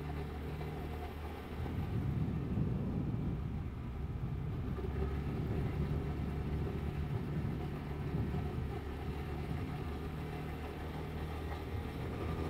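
Vespa GTS 300 scooter's single-cylinder engine running as the scooter rides along, with road and wind noise; it gets a little louder about two seconds in.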